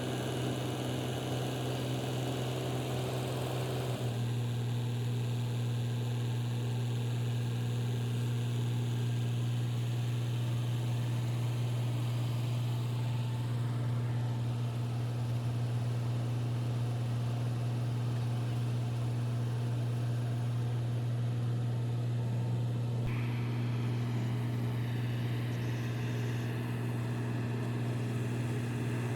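An engine running steadily at a constant speed, a continuous low hum, with a small change in its higher sound about four seconds in and again near the end.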